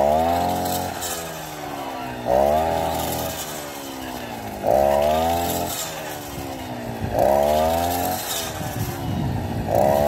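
CG420 two-stroke brush cutter engine revving up in a sudden burst about every two and a half seconds, five times. After each burst its pitch falls as the blade bogs cutting through maize stalks.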